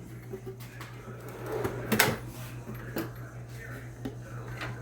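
Metal drawer of a U.S. General rolling service cart being worked: slide rattle and a sharp clunk about two seconds in, with a couple of lighter knocks after.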